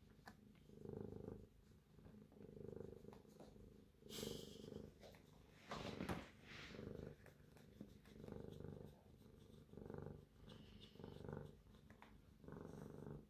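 A cat purring softly and steadily while being scratched, the purr swelling and easing with each breath about every second and a half. Two brief rustling, scratchy noises from fingers working through the fur come about a third of the way in and near the middle, the second the loudest moment.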